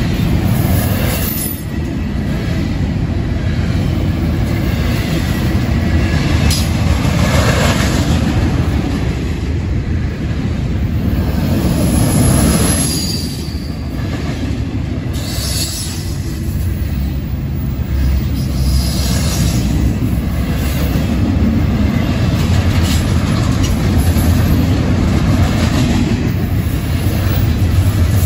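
Union Pacific double-stack intermodal freight train rolling past: a loud, steady rumble of steel wheels on rail that swells and eases as the well cars go by, with a few brief high wheel squeals.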